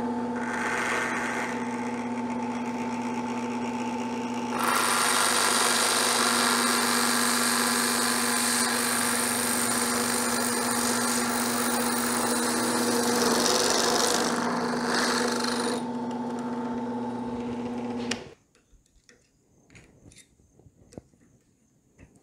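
Drill press motor running with a steady hum; about four seconds in, a hole saw bites into PVC pipe and a loud, rough cutting sound runs for about eleven seconds. The motor then runs free briefly and switches off, leaving a few light knocks near the end.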